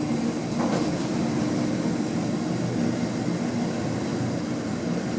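Schindler machine-room-less lift car in motion: a steady mechanical hum of the drive and car, with a faint click about a second in.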